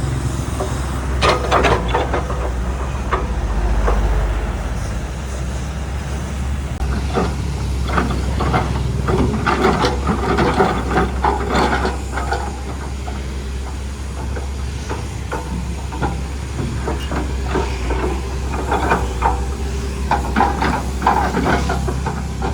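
Heavy diesel machinery running steadily, with a low hum under a hiss and many irregular metallic clanks and knocks, thickest from about a third of the way in.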